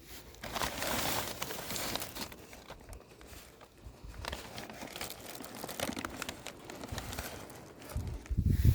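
Crinkly material being crumpled and handled in irregular crackling bursts, with a few low thumps near the end.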